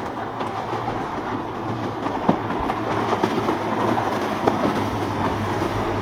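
Boat engine running steadily under a broad rush of water, with scattered sharp slaps and splashes.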